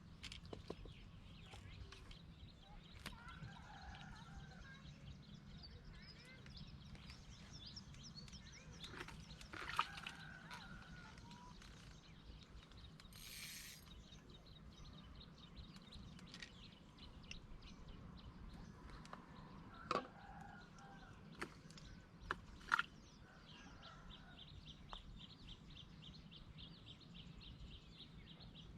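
Faint outdoor ambience with scattered bird calls and small clicks over a low steady hum; near the end a fast, high, evenly repeated trill starts up.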